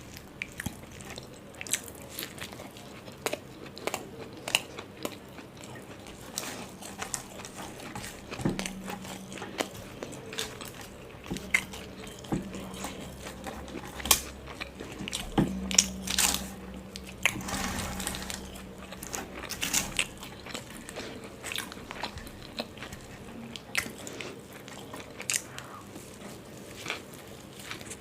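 Close-miked eating sounds of someone biting and chewing a stuffed cabbage paratha: irregular wet clicks and smacks of the mouth and chewing.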